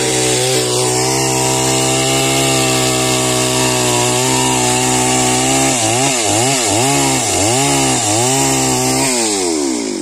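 STIHL two-stroke chainsaw running at high revs while cutting into a tree trunk. About six seconds in, the engine speed dips and recovers about four times, then the pitch falls away near the end as the throttle is let off.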